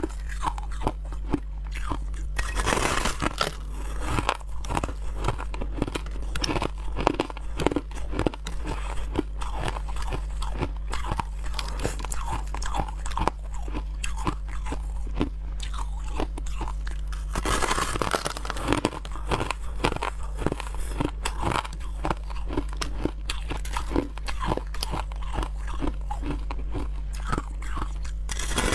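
Frozen crushed ice being bitten and chewed, a quick run of crisp crunches. Twice, about three seconds in and again a little past halfway, comes a longer, fuller crunching as a bigger bite breaks off the block.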